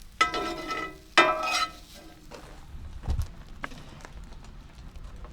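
Two clangs of metal camp cookware, about a second apart, each ringing briefly with steady tones before fading. A few softer knocks follow, over a low wind rumble.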